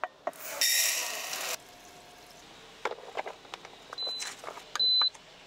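Water running from the sink tap for about a second, cutting off abruptly. Then two short high electronic beeps near the end as a button on a wall control panel is pressed.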